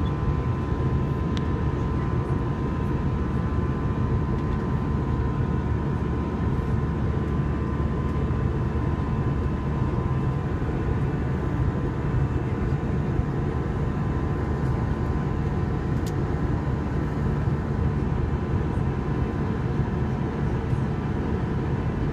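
Steady cabin noise inside an Airbus A321 in flight: the even drone of the engines and the rush of air past the fuselage, with a faint thin hum held above it.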